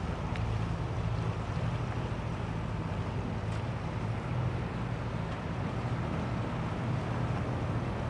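Wind buffeting the microphone on the deck of an anchored sailboat, with a steady low hum from a motor underneath.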